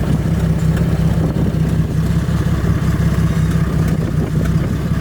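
Jeep XJ engine idling steadily through a freshly installed Cherry Bomb muffler, a smooth, even exhaust note that the owner calls really quiet.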